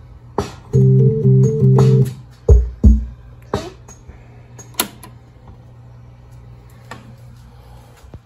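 A home electronic organ from around 1980 being played: a chord held for about a second, changing notes a few times, then several sharp irregular knocks, over a steady low hum.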